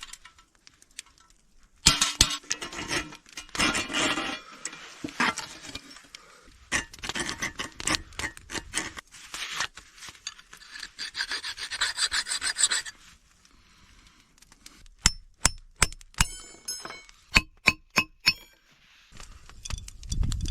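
Steel being worked by hand: rasping, scraping and rubbing of metal for about ten seconds, then after a short lull a quick run of about a dozen sharp metal strikes, some of them ringing briefly.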